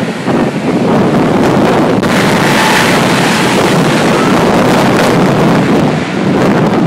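Jet dragster's jet engine blasting at close range behind the car: a loud, steady rush of exhaust with wind buffeting the microphone. About two seconds in it grows harsher and brighter.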